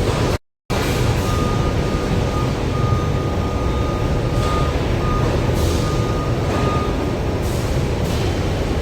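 A heavy vehicle's engine running with a steady low rumble, and a high reversing-alarm beep sounding on and off over it.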